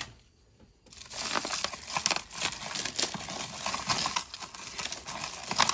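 Tangled costume jewelry being pulled apart by hand: beaded necklaces and metal chains rattling and clicking against one another. It starts about a second in and carries on as a continuous run of small clicks.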